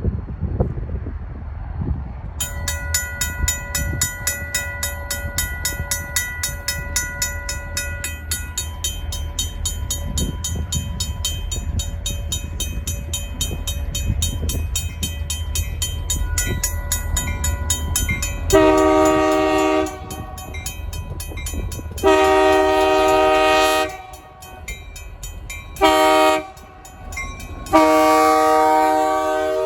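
A RACO mechanical crossing bell starts ringing about two seconds in, with rapid, steady strikes. A Union Pacific locomotive's air horn then sounds the grade-crossing signal: long, long, short, long, the last blast still going at the end.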